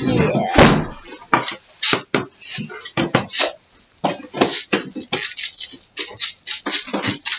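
A quick, irregular run of clicks, knocks and rustles from small objects being handled on a table, with a brief voice sound in the first second.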